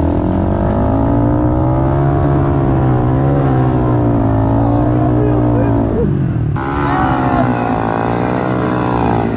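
Dirt bike engine pulling steadily in a low gear as the bike climbs a slope, its pitch rising and dipping with the throttle. About two-thirds through the sound changes abruptly and the engine carries on at a similar pitch.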